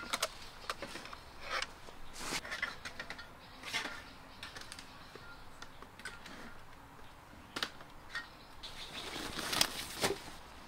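Handling sounds of camp gear: a sharp knock at the start as a can is set down on the camp table, then scattered light taps and rustles of cans, gas canisters and a plastic snack bag. Near the end, a longer rustle of a canvas tote bag being handled.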